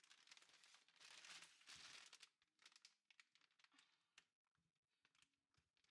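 Faint crinkling and rustling of wrapping being handled, strongest in the first two seconds, then thinning to a few light clicks.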